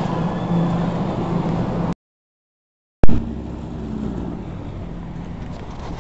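Indoor store ambience with a steady low hum, then a second of dead silence at an edit. After a sharp pop, outdoor noise of wind on the microphone and car traffic follows.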